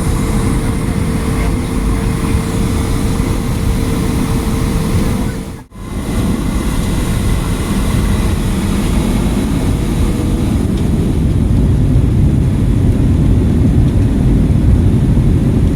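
Airliner cabin noise: the plane's engines and air running as a steady low rumble heard from inside the cabin. It cuts out briefly about five and a half seconds in, then returns a little louder in the second half.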